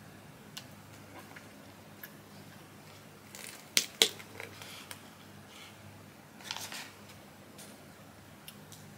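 Clear plastic domed lid being pried off a sundae cup, with two sharp plastic clicks in quick succession about four seconds in, then a short rustle of handled packaging and a few light ticks.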